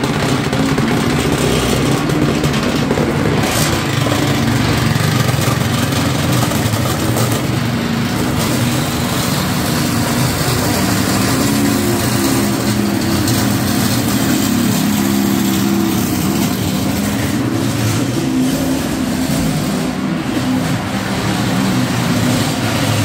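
Handheld motorized tool buzzing against metal strips and a sheet-metal dustpan fixed to a wooden board, making a loud, continuous rattling drone whose low pitch shifts up and down.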